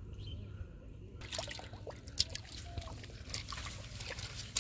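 Hooked fish thrashing and splashing in shallow pond water among water hyacinth as it is dragged toward the bank. Irregular splashes and rustles start about a second in.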